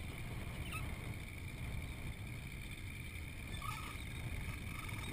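Small motorboat's engine running at low speed, a steady low rumble.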